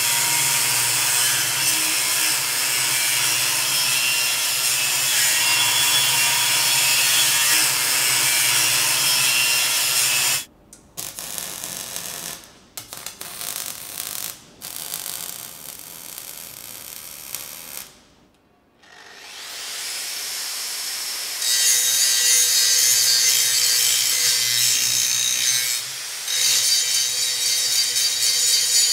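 Angle grinder with a cutting disc slicing through a steel pipe, running steadily for about ten seconds. Then comes stop-start electric arc welding on the pipe for several seconds and a short pause. Near the end the angle grinder runs again with a Norton Quantum3 7 mm grinding disc, grinding down the weld.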